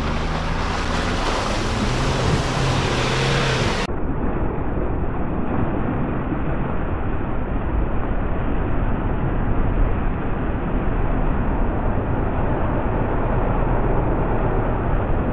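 Off-road 4x4 engine running under load for about four seconds. The sound then cuts abruptly to a dense, steady rushing noise.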